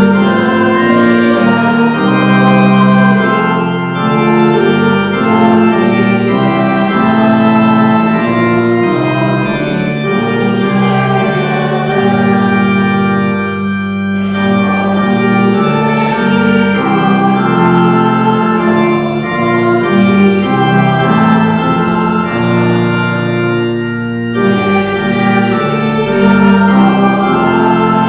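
Church organ playing a hymn tune in sustained chords, with short breaks between phrases about every four to ten seconds.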